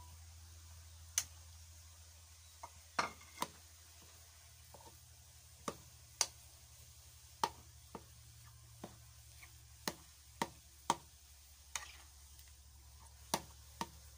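A metal spatula knocks and scrapes against a wok while minced pork is stirred into simmering coconut milk, giving scattered light clicks about once a second over a low steady hum.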